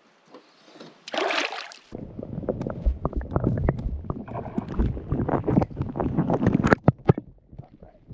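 Lake water heard through a submerged camera: a splash about a second in as it goes under, then muffled sloshing and bubbling with many small clicks and knocks.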